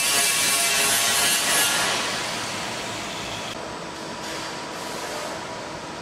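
Machine noise: a loud steady hiss with a faint whine through it, easing off about two seconds in into a quieter, steady hiss.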